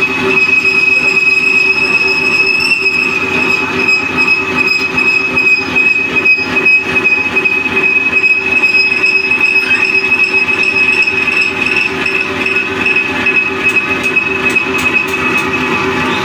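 Metal lathe running, turning a long steel pipe, with a steady high-pitched whine over a lower hum.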